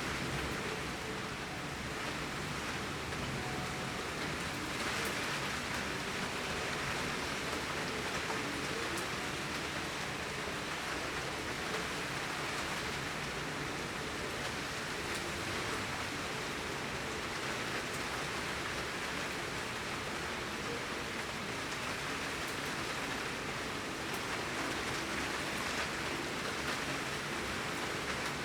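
Heavy rain falling steadily, a dense even patter with scattered individual drops.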